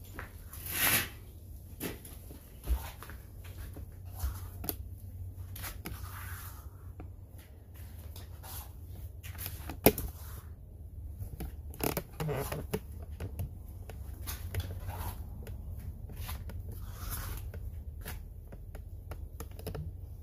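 Low steady rumble with scattered small clicks and scrapes, typical of a handheld phone microphone being carried around outdoors; one sharper click about ten seconds in.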